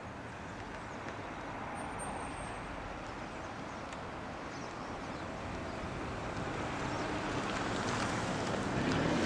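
A car driving, heard from inside: steady tyre and engine noise that grows louder toward the end as an engine hum comes up.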